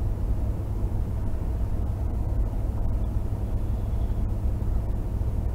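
Steady low engine and road rumble heard inside a moving vehicle, even in level throughout.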